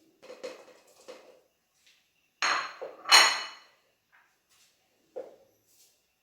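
Kitchen dishes and utensils being handled: a few light knocks, then two louder ringing clinks about two and a half and three seconds in, and another light knock near the end.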